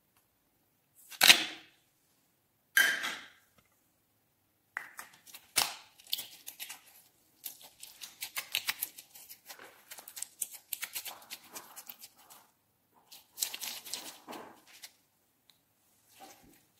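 Small plastic slime tub snapped open by hand, a sharp pop about a second in and another about two seconds later. Then slime squeezed and kneaded by hand, a long run of small sticky crackling clicks that stops shortly before the end.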